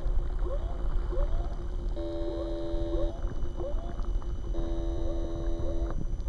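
RC model destroyer's sound modules: a ship's whooper alarm sounding short rising whoops about twice a second, with two horn blasts of just over a second each, about two seconds in and again about four and a half seconds in, over a low rumble.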